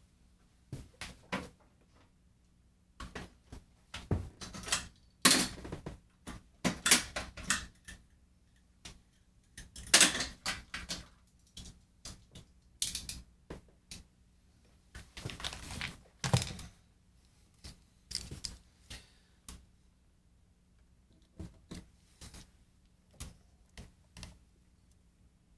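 X-Acto knife scraping old glue from the loose binding channel of a 1956 Martin D-21 acoustic guitar: irregular short scrapes and clicks, with occasional knocks from handling the guitar and tools.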